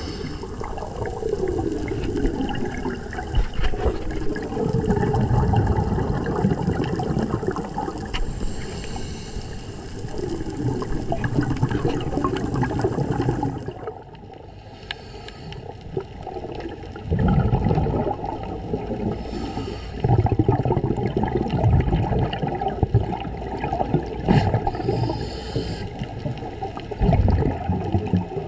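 Underwater sound of a scuba diver breathing through a regulator: exhaled bubbles gurgling and rumbling in surges every few seconds.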